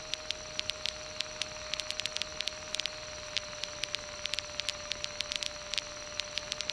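Cockpit headset and radio audio with no one talking: a steady hiss and a constant faint tone, broken by irregular static crackles of about five to ten clicks a second.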